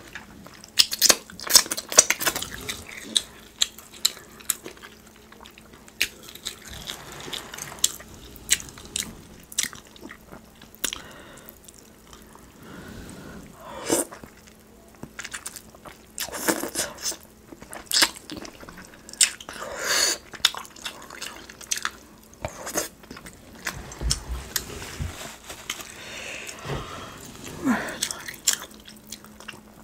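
Close-miked eating of sauce-soaked rotisserie chicken by hand: wet chewing, lip smacks and sucking at the meat, with many short, sharp clicks.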